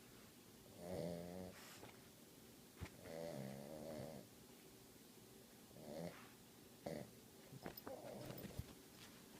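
A sleeping pet snoring softly: irregular snores every one to three seconds, with a few faint clicks between them.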